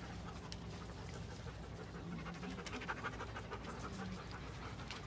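Dog panting, a quick run of short breaths that is strongest about three seconds in.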